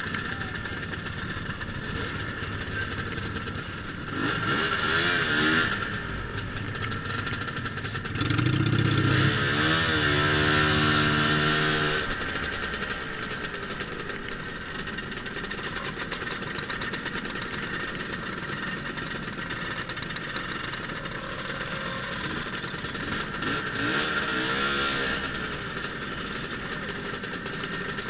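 Motor scooter engines running at low riding speed, with an engine revving up louder three times: briefly about four seconds in, longest and loudest from about eight to twelve seconds, and again near the end.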